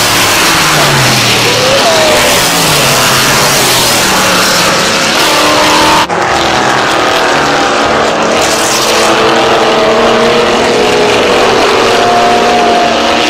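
Vintage GT race cars running at speed on a circuit, their engine notes falling in pitch as they pass in the first few seconds. After an abrupt break about six seconds in, several engines are heard together, their pitch holding and rising gently as more cars come through.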